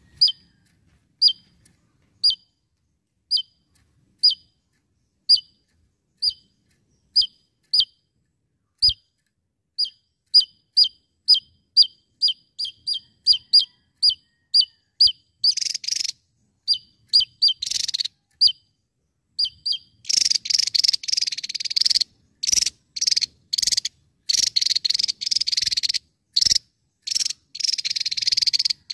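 A Javan tesia calling: short, sharp, high chips about once a second that speed up to two or three a second, then from about twenty seconds in a rapid, buzzy rattling in long bursts.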